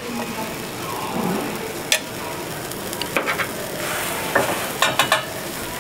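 A crepe topped with egg sizzles steadily on a hot round crepe griddle. Sharp clinks of a metal spoon against a metal container cut through it, once about two seconds in, a few around three seconds, and a quick run near the end, as grated cheese is shaken out onto it.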